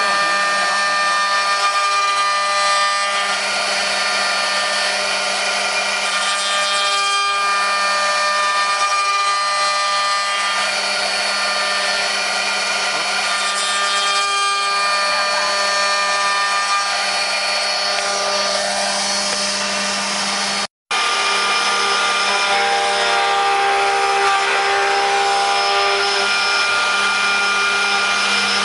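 Multi-spindle 4-axis CNC wood router carving wooden blanks on rotary axes: high-speed spindles whining with steady tones over the rasp of the cutters in the wood. The sound cuts out for a moment about two-thirds through, then the same cutting noise carries on.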